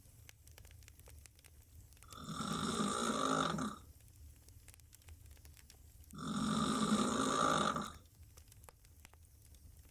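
A woman snoring loudly with her mouth open while lying on her back: two long, rasping snores about four seconds apart, with quiet between them.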